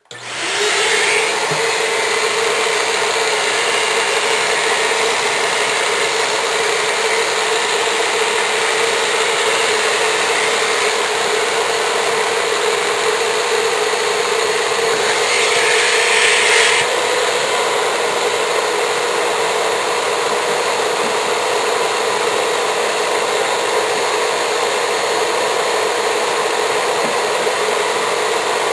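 Vacuum cleaner switching on and running steadily with a hum, sucking lint and dust off a refrigerator's condenser coils. About halfway through, the hiss grows briefly louder and brighter for about a second.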